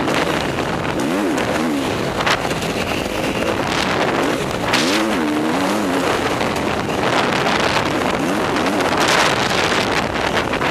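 Motocross bike engine revving up and down, its pitch rising and falling repeatedly as the throttle opens and closes on a dirt track, over a steady rush of wind and track noise.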